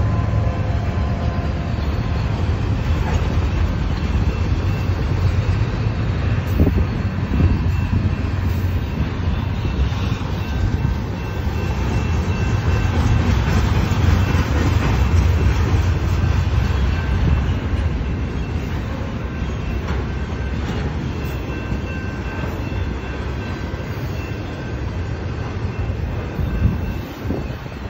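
Double-stack intermodal container cars rolling past on the rails: a steady rumble and rattle of steel wheels on track, with faint thin squeals. The locomotives' low drone gradually fades through the first half.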